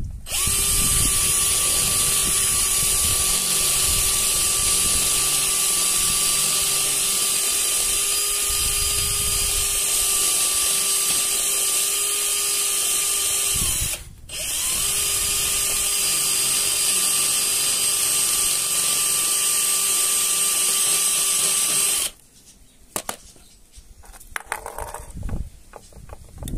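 Electric drill running at one steady speed for about fourteen seconds, stopping briefly, then running again for about eight seconds. After that come a few light knocks and clicks.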